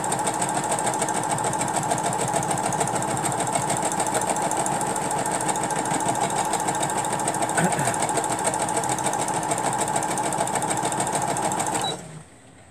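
Electric sewing machine running steadily, chain-stitching a row of small quilt pieces fed through one after another, then stopping suddenly near the end.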